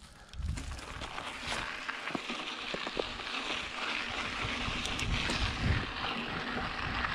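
Mountain bike rolling off and gathering speed on a dry dirt trail: the tyres hiss and crunch on the loose sandy surface and wind noise on the microphone builds as it speeds up, with scattered knocks of the bike over bumps.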